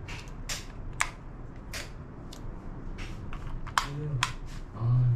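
Wall switches on a switchboard flicked on and off one after another, a string of sharp clicks about two a second, as the switches are tried to get the ceiling fan running.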